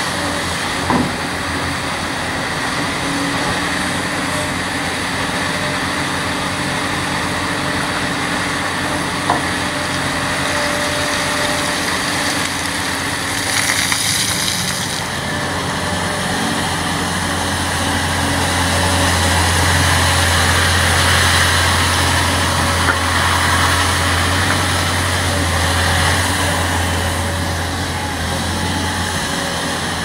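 Large Hitachi hydraulic excavator's diesel engine running steadily as it digs and swings, the low engine hum growing stronger through the second half. Two sharp knocks come about a second in and near nine seconds.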